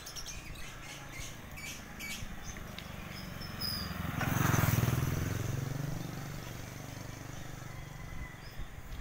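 Small motorcycle passing close by, its engine growing louder to a peak about four and a half seconds in, then fading away.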